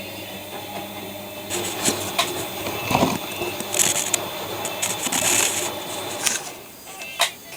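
ELIN WA 14 M washing machine running: a low hum that fades about two seconds in, with scattered clicks and several short bursts of hissing noise.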